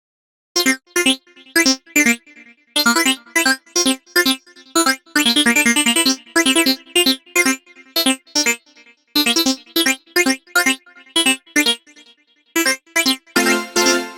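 Instrumental intro of a song: a rhythmic run of short, clipped chords with brief gaps between them, and a fuller, held chord with bass notes coming in near the end.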